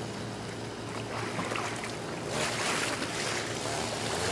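Swimming-pool water splashing and sloshing as children swim, growing louder about halfway through.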